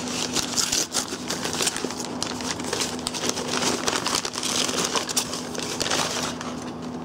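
Packing paper crumpling and rustling as hands dig through it and unwrap a plastic fruit fly culture cup from a cardboard box, dying down about six seconds in.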